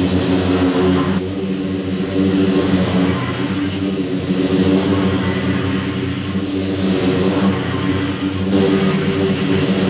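Scag Cheetah zero-turn mower's engine running steadily under mowing load, in time-lapse audio that has been sped up with the pitch put back to normal. The drone shifts abruptly where shots are spliced, about a second in and again near the end.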